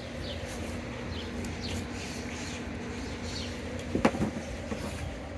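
A steady low hum with faint high chirps over it, and a single sharp metallic clank about four seconds in, as of a hand tool knocked or set down.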